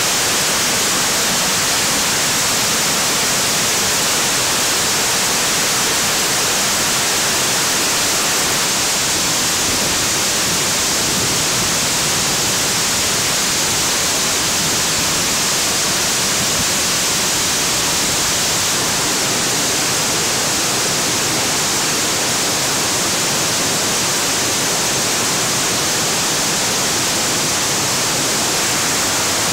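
Rushing white water of creek cascades and a waterfall running at high water, a loud, steady hiss that never lets up.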